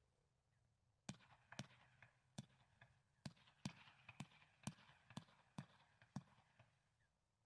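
Firework cake firing a run of faint, sharp pops, about two a second, with a light crackle between them; the pops begin about a second in and stop a second before the end.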